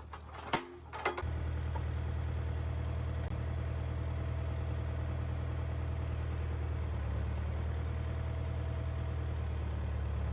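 A few sharp knocks, then from about a second in an engine idling steadily with a low, even hum.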